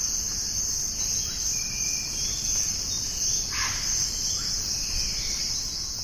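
Steady, high-pitched insect chorus, with a few short, faint bird calls over it.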